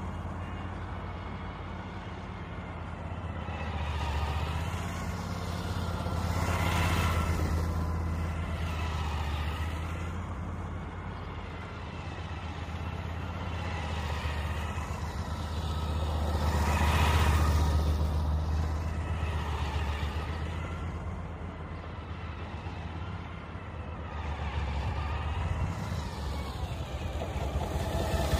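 Adventure-touring motorcycle engine running as the bike circles at low speed. It grows louder each time it passes close, twice, and again as it draws near at the end.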